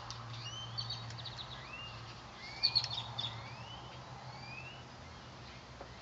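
Birds chirping with short rising calls, repeated every second or so, over a steady low hum. A few sharp clicks come about two and a half to three seconds in.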